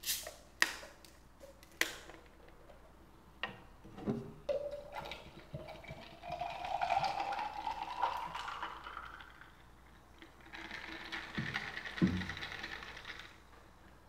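Plastic soda bottle cap twisted open with a few sharp clicks and a short hiss of escaping gas. Then carbonated pineapple soda is poured over ice into a glass jar, the pouring sound rising steadily in pitch as the jar fills, followed by the fizzing of the soda with a couple of low knocks.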